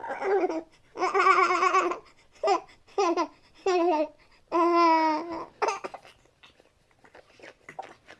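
Baby cooing and babbling in a string of short, high-pitched coos, some with a wavering pitch, the sounds growing fainter and sparser after about six seconds.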